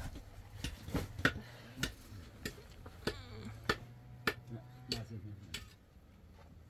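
A steady series of sharp knocks, about one every half-second, over a low hum, stopping near the end.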